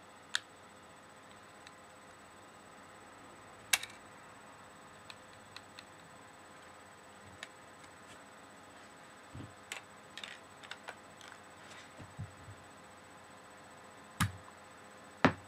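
Scattered sharp clicks and taps of LEGO plastic parts being handled and worked, a few louder snaps among lighter ticks, over a faint steady electrical hum.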